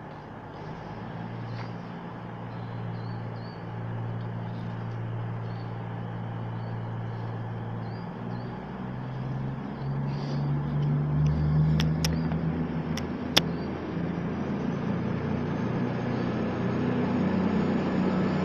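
CrossCountry Class 220 Voyager diesel multiple unit pulling away, its underfloor diesel engines running up and growing louder, the engine note rising partway through. A few sharp clicks come about two-thirds of the way in.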